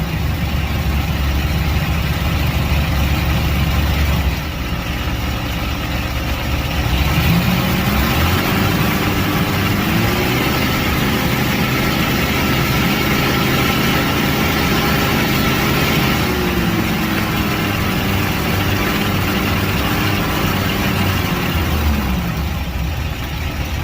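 Car engine idling, then revved up about eight seconds in, held at raised speed for several seconds, and let slowly back down to idle. The engine is being run to find whether a ticking comes from the torque converter or the flexplate.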